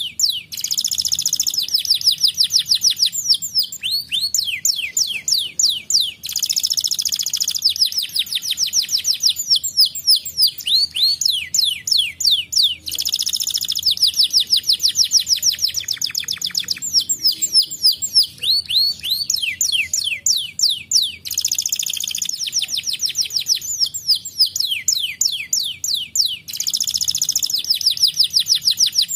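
Domestic canary singing a continuous song of fast trills: runs of rapidly repeated high, down-sweeping chirps that change phrase every few seconds.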